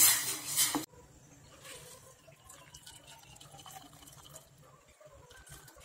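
A spoon clattering against a steel pan of dissolved jaggery, cut off abruptly about a second in. Then dissolved jaggery liquid is faintly heard being strained and poured into a second pan.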